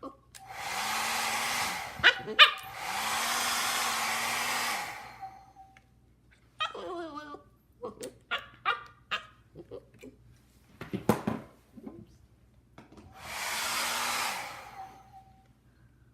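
A hair dryer is switched on three times in bursts of about two seconds. Its motor hum rises as it spins up and falls as it cuts off. Between the bursts, a husky vocalises in short, uneven sounds.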